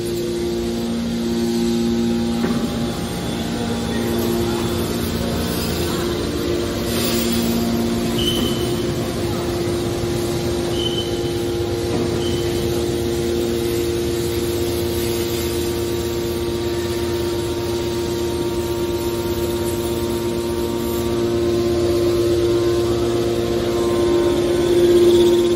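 Hydraulic power unit of a metal scrap baler running: a steady machine hum with a couple of held tones, and a few brief high-pitched chirps about a third of the way in.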